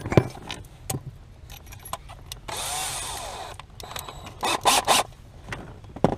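Power drill run briefly for about a second, its pitch rising and falling, among knocks and clatter of tools and parts being handled.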